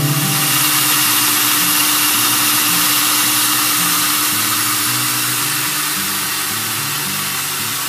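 Three cordless-drill motors of a homemade lapidary sphere machine running together, a steady whir with a faint high whine.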